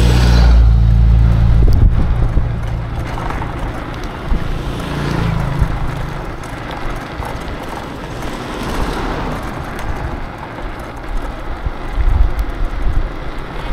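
A motor vehicle's engine runs close by, loudest in the first two seconds and then fading. Steady road and wind noise from riding follows, with a brief thump near the end.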